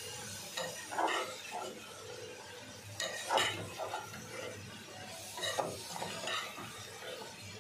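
A metal spatula stirs and scrapes kidney beans frying in masala inside an aluminium pressure cooker, with several separate scraping strokes about a second or two apart.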